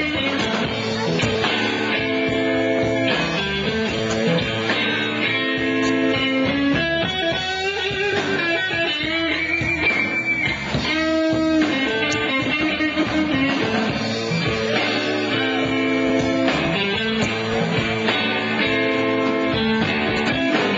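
Live blues-rock band playing an instrumental passage: an electric guitar repeats a riff over drums.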